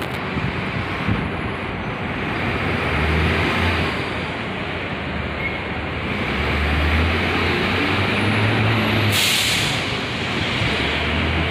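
Heavy diesel vehicle's engine running, its low rumble rising and falling, with a short sharp hiss of air brakes about nine seconds in.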